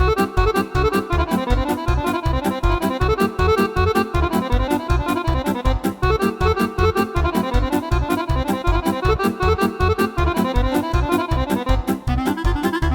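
Yamaha arranger keyboard playing a style demo: a drum and bass accompaniment with a steady, fast beat under a pitched instrument voice.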